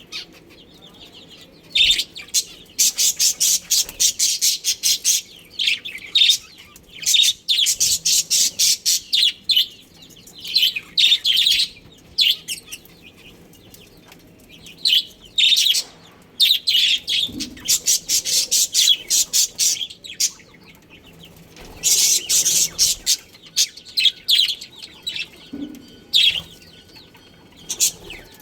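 Budgerigars chattering: bouts of rapid, high-pitched chirps lasting a few seconds each, with short pauses between.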